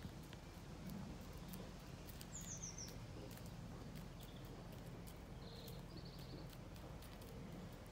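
Hens pecking at a corn cob: faint, irregular clicks of beaks striking the kernels. About two and a half seconds in, a bird gives a brief falling run of high chirps.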